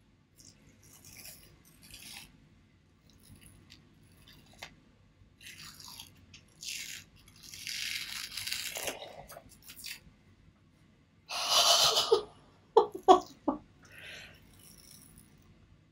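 Dried peel-off face mask being slowly pulled off the skin right next to the microphone: irregular crackling, crinkling bursts, the loudest one a little over two-thirds through, followed by a few short sharp snaps.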